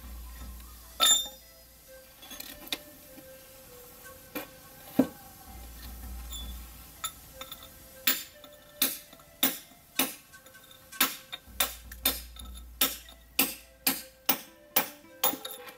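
Hand hammer knocking along the edge of an upright flat stone slab, dressing it into shape, in sharp clicking blows. The blows are scattered at first, then come in a steady run of about two a second from about eight seconds in.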